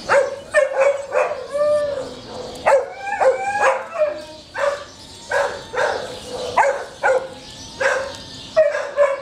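A dog barking over and over in short, high-pitched barks and yips, about two a second, some rising and falling in pitch.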